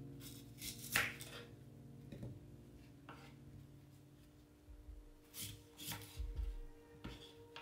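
Small kitchen knife cutting through apple wedges on a wooden cutting board: a handful of separate crisp cuts and taps, the sharpest about a second in.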